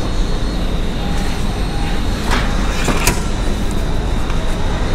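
Cardboard pizza box being pulled out of a pizza vending machine's delivery slot, with two short sharp scrapes about two and three seconds in, over a steady low rumble of machine or room noise.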